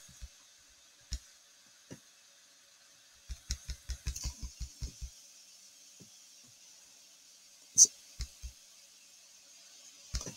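Computer keyboard keys clicking while a video editor is stepped forward frame by frame: a few separate presses, then a quick run of about ten in under two seconds, then a few more.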